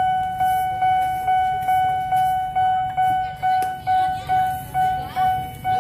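Railway level-crossing warning bell ringing, a single bell-like tone struck about two and a half times a second, each stroke dying away before the next, while the barriers are down for an approaching train.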